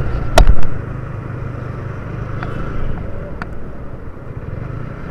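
Yamaha Vixion R motorcycle's single-cylinder engine running steadily under way, heard as a low hum with rumble. There is one short, loud thump about half a second in.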